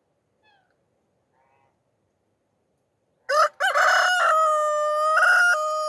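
Rooster crowing: a loud cock-a-doodle-doo that starts about halfway in, with short opening notes and then a long held final note.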